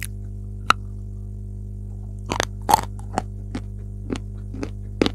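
A piece of dry chalk being bitten and chewed close to the microphone. A sharp snap comes about a second in, a loud burst of crunches a little after two seconds, then single crunches about every half second. A steady low mains hum runs underneath.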